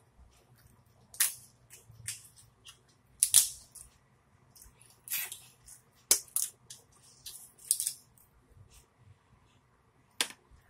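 Close-up eating sounds: the shell of a boiled lobster tail cracking and snapping as it is pulled apart by hand, with chewing. It comes as a string of sharp, uneven crackles with short pauses between, the loudest about three and a half seconds in.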